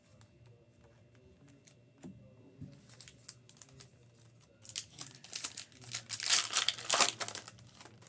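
A foil trading-card pack being torn open and its wrapper crinkled, loudest for about three seconds near the end, after a few light clicks and taps of handled cards.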